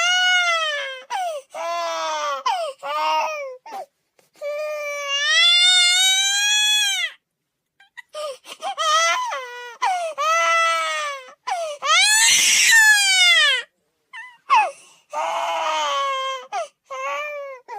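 Baby crying in a string of wails, each rising and falling in pitch, with short catches of breath between them. There is a brief pause about seven seconds in, and the loudest, harshest cry comes about twelve seconds in.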